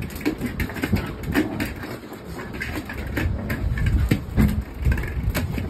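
Irregular clicks and taps of a Pomeranian's paws and claws on a tiled floor as it scrambles after a rubber ball, over a low rumble.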